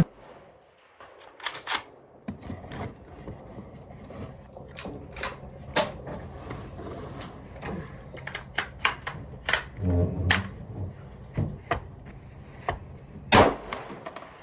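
Scattered gunshots from firearms at a shooting range, well over a dozen sharp reports at irregular intervals, the loudest near the end.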